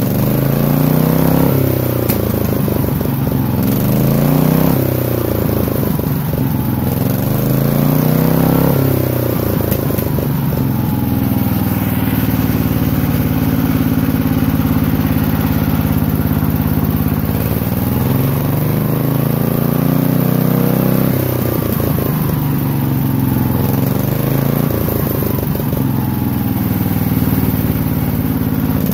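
Cast-iron Briggs & Stratton engine running loudly, its speed rising and falling several times as the throttle linkage at the carburetor is worked by hand, held steady for a few seconds mid-way.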